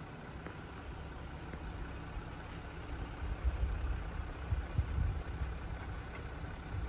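Jeep engine running at low revs, a steady low rumble with a few uneven swells in the middle.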